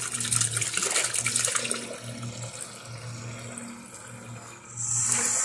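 Warm water running from a garden hose into a plastic bucket, splashing as the bucket fills. It is louder for the first two seconds, quieter through the middle, and briefly louder again near the end.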